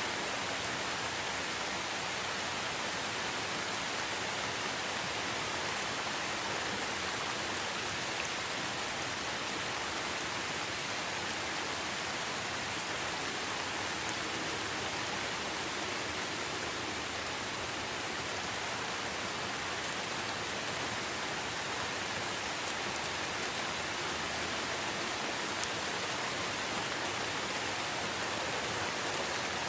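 Steady rain falling in a rainforest: an even, unchanging hiss with faint scattered drop ticks.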